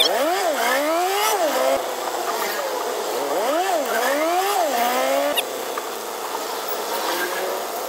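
A vehicle engine revving up in quick rising sweeps that drop and climb again, twice about three seconds apart, over steady traffic noise heard from inside a jeepney.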